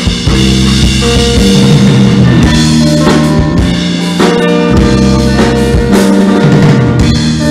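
Live rock band playing loud: electric guitar and bass guitar over a drum kit beating out a steady rhythm of kick and snare hits.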